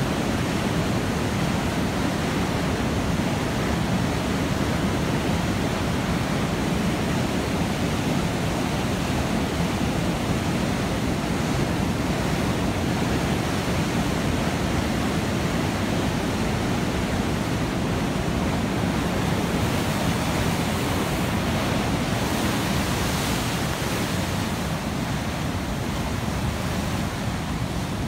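Steady roar of water pouring over a dam and churning below it.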